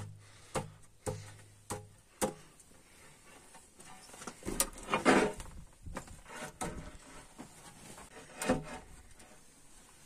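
Large white wall panels being handled and fitted into place: scattered light knocks and taps, with a longer scraping rub about five seconds in.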